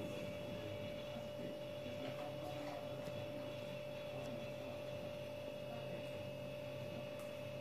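Steady electrical hum with a steady higher tone above it, and a few faint clicks.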